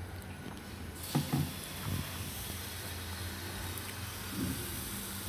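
Rava dosa batter sizzling with a steady hiss as it is ladled onto a hot non-stick tawa. The hiss starts about a second in, with a few soft knocks.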